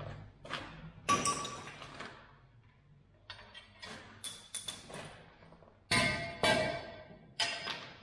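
Metal-on-metal clanks at an irregular pace: a hand tool knocking steel pins and parts of a mini excavator's worn arm linkage. Each knock rings briefly; the loudest comes about a second in, with two more close together near the end.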